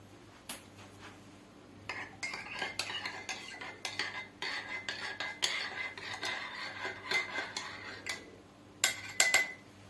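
A spoon stirring hot milk in a glass, clinking and scraping against the sides for about six seconds, with a few sharper clinks near the end.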